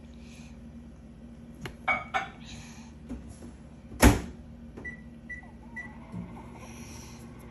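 Household knocks and clatter, then a loud bang about four seconds in, followed by three short, high electronic beeps about half a second apart.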